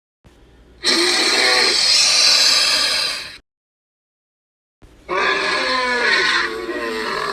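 Two creature sound effects, each broken off into dead silence: first a harsh hissing screech, then a wavering, voice-like roar.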